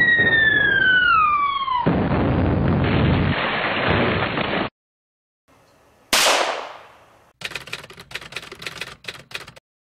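A falling whistle that gives way to an explosion, which runs for about three seconds. After a short pause comes a single sharp blast, then a rattle of rapid gunfire for about two seconds.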